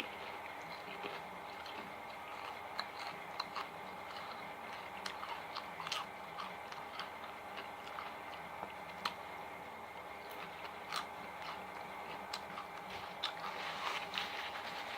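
A person chewing and biting food close to the microphone, with scattered small crunches and mouth clicks, over a faint steady hum.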